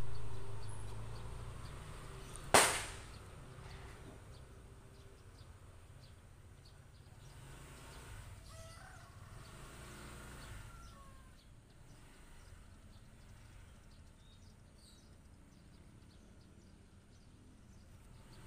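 Faint outdoor ambience: a low rumble that fades over the first few seconds, one sharp click about two and a half seconds in, and a few faint bird chirps.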